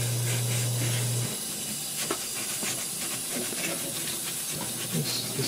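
Soft-bristle paintbrush scrubbing a wet, soapy motherboard: a hissing rub of quick short strokes. A steady low hum stops about a second in.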